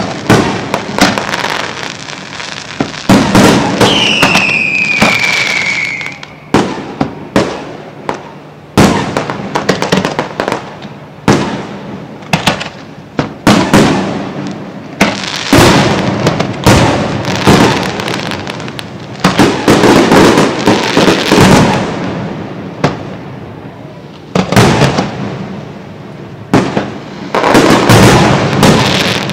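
Fireworks display: aerial shells going off, many sharp bangs in quick succession, with one falling whistle lasting about two seconds, about four seconds in.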